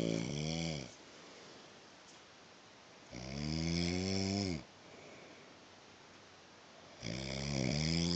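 A man snoring: long rattling snores about every four seconds, each dropping in pitch as it ends, with quiet gaps between them.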